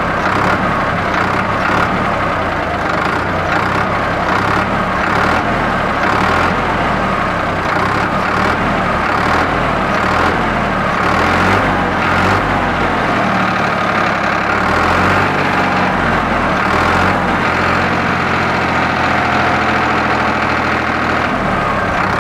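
A Ford 3600 tractor's three-cylinder diesel engine, modified to 65 hp, running steadily with no speech over it. Its pitch rises and falls a little through the middle.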